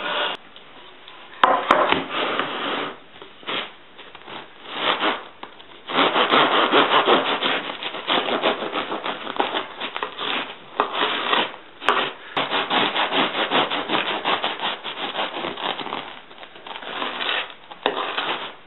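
Serrated bread knife sawing back and forth through a crusty loaf of French bread on a wooden cutting board, in a run of rasping strokes. The strokes start about a second and a half in and grow steadier after about six seconds, with brief pauses between.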